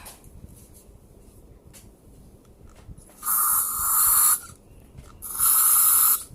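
Air Wick aerosol air freshener sprayed in two hissing bursts of about a second each, the second starting about a second after the first ends. It is being added to the slime to make it less sticky.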